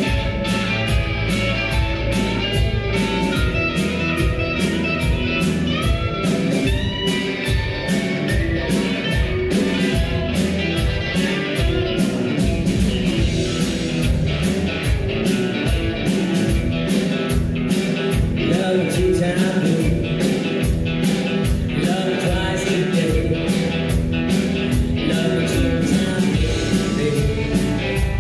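Live rock band playing: electric guitars, bass and a steady drum beat, with a woman singing.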